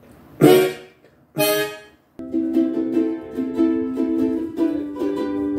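Background music on a strummed string instrument: two single chords ring out about a second apart, then a steady strummed pattern starts about two seconds in.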